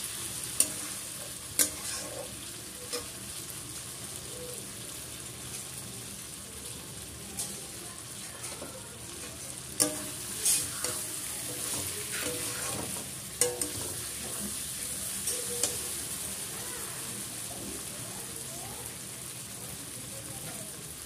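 Chicken leg pieces frying in thick masala in a metal kadai, sizzling steadily while they are cooked down (kosha), with a spatula stirring and scraping and now and then knocking sharply against the pan.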